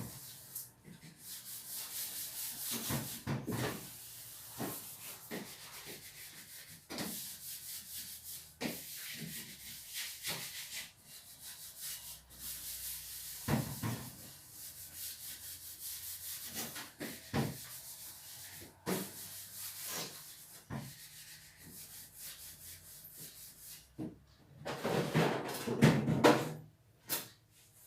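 A sponge scrubbing the inside surfaces of a refrigerator in repeated rubbing strokes. Near the end there is a louder clatter.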